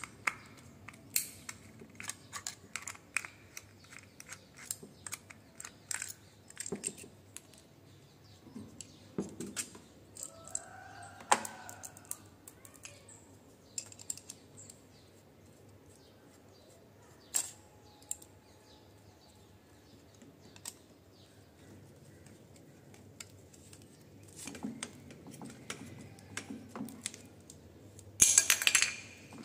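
Irregular small clicks and taps of a screwdriver and screws against a plastic 16-amp three-pin plug as it is unscrewed and opened, with a short, louder scraping rustle near the end.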